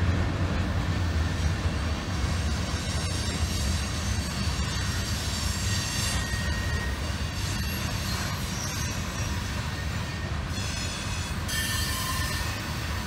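CSX grain train of covered hopper cars rolling past with a steady low rumble. A high thin wheel squeal comes and goes, strongest near the end.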